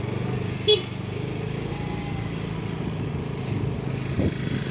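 Motor scooter engine running steadily while riding, with one short high-pitched chirp under a second in.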